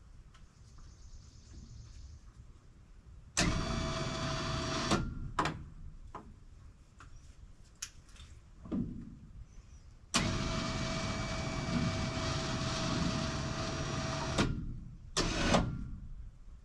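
Winch motor rolling a heavy red oak log in two pulls. It runs with a steady whine for about a second and a half, then again for about four seconds, each run starting and stopping abruptly. A few short knocks come between the pulls, and a louder one near the end as the log shifts.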